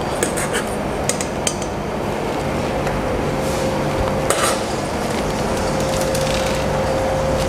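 Steel tongs clinking against a stainless steel stockpot while beef bones are handled in simmering broth: several light clinks in the first second and a half and a louder one about four seconds in, over a steady background rumble.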